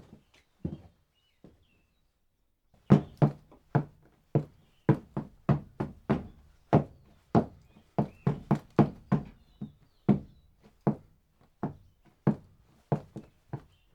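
A man's footsteps: a few light walking steps, then after a short pause, about three seconds in, heavy marching steps striking at a regular pace of roughly two per second.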